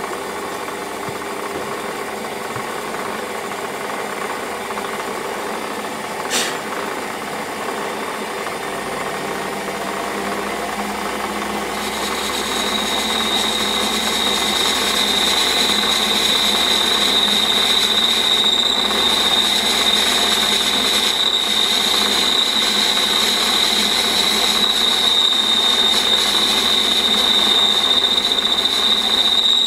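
Warco metal lathe running while a boring bar cuts inside a bore. About twelve seconds in, a steady high-pitched whine from the cut sets in and grows slightly louder. There is a single click about six seconds in.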